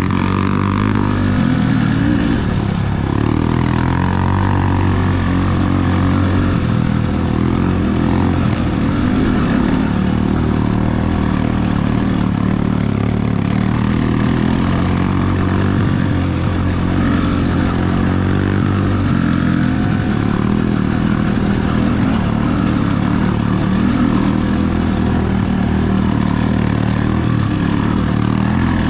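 Dirt bike engine running close up from on board while riding a rough trail, its pitch rising and falling with the throttle.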